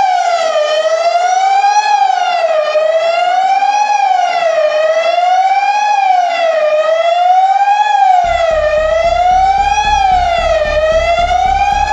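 A wailing siren, its pitch rising and falling evenly about every two seconds. About eight seconds in, a low pulsing beat joins underneath.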